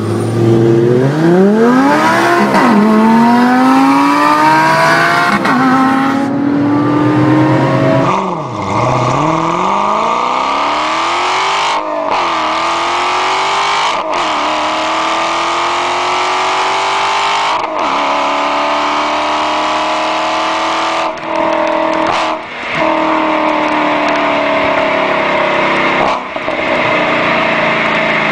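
Switzer R750-tuned Porsche 911 (997) flat-six accelerating hard, revs rising and falling through quick gear changes. After a cut about eight seconds in, a Dodge Challenger SRT8's Hemi V8 with Corsa exhaust pulls hard through several long gears, revs climbing steadily and dropping at each upshift.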